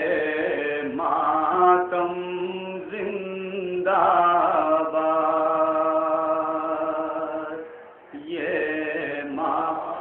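Man's voice chanting a noha, a Shia mourning lament, in long drawn-out sung lines with a short break about eight seconds in.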